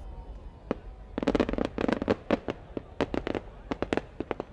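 Aerial fireworks: the many small bursts of a shell popping in the sky. There is one sharp pop, then about three seconds of quick, irregular sharp reports.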